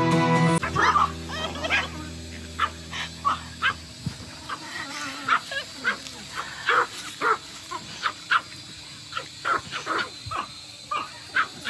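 Several small dogs yapping in short, high barks, many in quick succession, while they chase each other in play.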